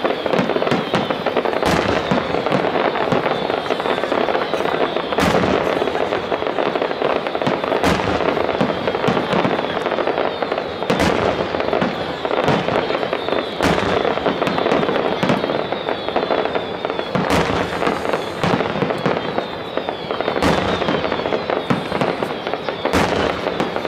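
Fireworks display: a continuous dense crackle of many small bursts, with a sharper bang from a shell about every two to three seconds.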